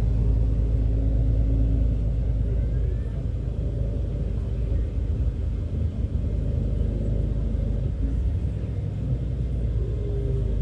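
Steady low rumble of a moving coach, engine and road noise heard from inside the passenger cabin.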